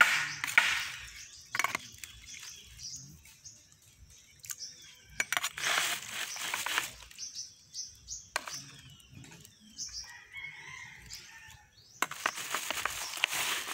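A metal ladle stirs pieces of raw pork in a plastic basin of water, sloshing the water in three bursts. Between the bursts, birds chirp and a rooster crows.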